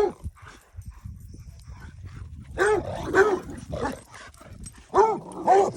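Dog barking during play: short, sharp barks in quick bunches, with a quieter pause of about two seconds between the first bark and the next cluster.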